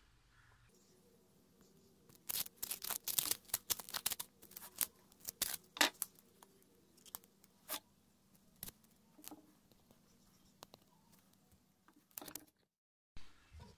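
Masking tape being peeled off a new wooden knife handle: a quick run of sharp crackling snaps that thins out to scattered clicks.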